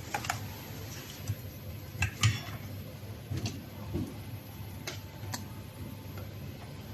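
Scattered light clicks and taps of small parts and tools being handled: a handful of sharp ticks at uneven intervals, the loudest a little over two seconds in, over a low steady hum.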